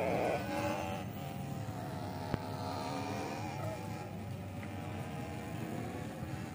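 Children's small ride-on mini motorbikes running around a paved square, a steady, faintly wavering motor buzz and hum. A single sharp click comes about two seconds in.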